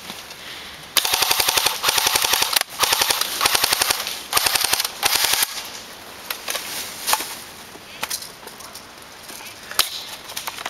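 Airsoft electric gun firing on full auto close to the microphone: three long bursts of rapid, evenly spaced mechanical clicks, followed by a few scattered single ticks.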